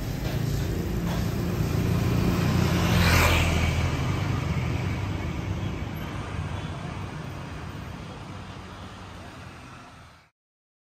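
A low rumble like a passing road vehicle swells to a peak about three seconds in, then fades out slowly and cuts off shortly before the end.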